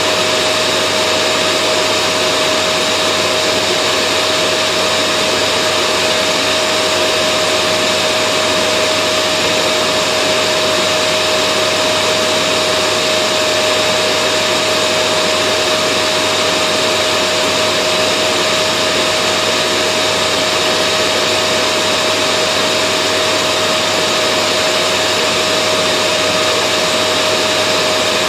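Vacuum cleaner running steadily: an even rush of air with a constant motor whine at one steady pitch, unchanging throughout.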